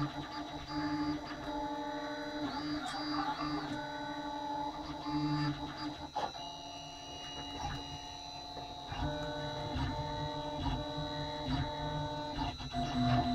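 Printrbot Simple Metal 3D printer's stepper motors whining while printing, in steady tones that jump in pitch every fraction of a second as the print head changes moves, over a constant high whine.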